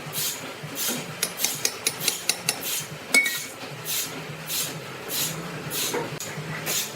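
Sawmill machinery clattering: metallic clinks and knocks over a regular hissing pulse about every 0.6 s, with a quick run of sharp clicks and one louder knock a little past the middle.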